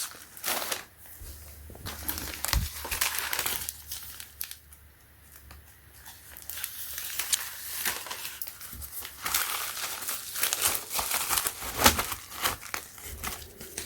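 Packaging being handled and opened, crinkling and rustling in irregular bursts, with some tearing.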